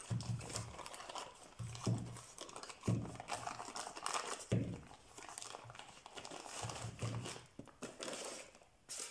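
Plastic bag crinkling and rustling as it is pulled off an oil-packed four-jaw lathe chuck, with a few soft low thumps from the chuck being handled.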